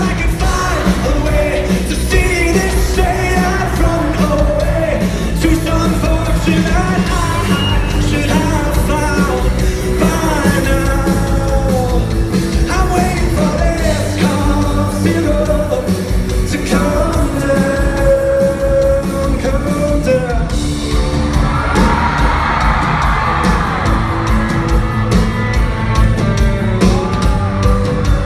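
Live concert: a male singer fronting a rock band, with the crowd yelling and whooping. About two-thirds of the way through, many voices from the crowd swell up together.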